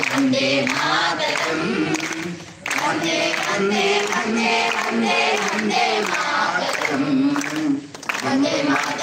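Voices singing a melody together in long held and gliding notes, breaking off briefly twice.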